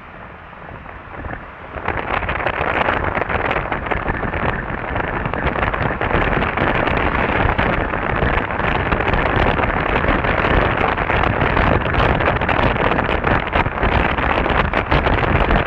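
Wind buffeting the microphone of a handlebar-mounted action camera on a motorbike riding at speed, a loud rushing noise that jumps up about two seconds in.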